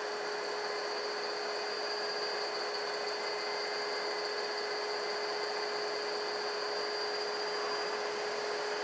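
AC induction motor spinning with no load on a DIY-kit AC inverter, a steady electric whir with one constant tone, holding an even speed.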